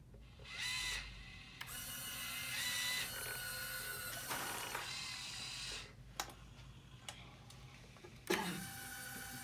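Electric winch motor of a tracked hobby robot's lift mast whirring with a steady whine as it hauls the popcorn bucket up by string over pulleys. It stops for a couple of seconds with a few clicks, then starts again with a sudden jolt and a pitch that drops near the end.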